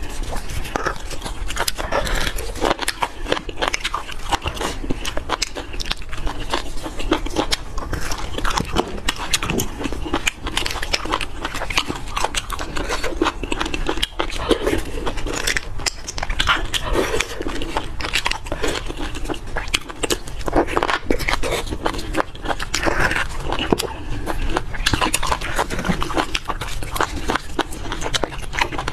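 Close-miked eating of roasted beef bone marrow: wet bites, chewing and sticky smacking mouth noises, a dense run of short clicks and smacks throughout.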